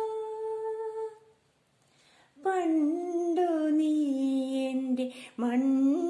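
A woman humming a Malayalam devotional melody without words: a long held note that stops about a second in, a brief pause, then a sliding melodic phrase that dips and rises again near the end.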